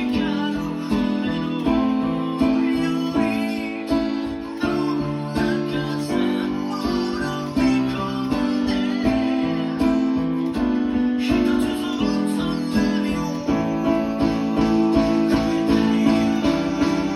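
Band music with strummed guitar chords, drums and bass, and a keyboard part played along with it.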